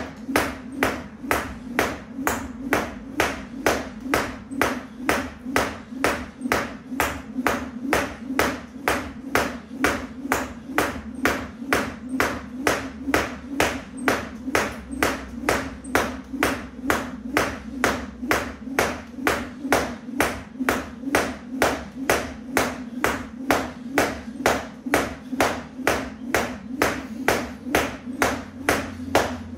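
Skipping rope slapping the floor with each turn, together with feet landing on a mat, in a steady rhythm of about two strikes a second.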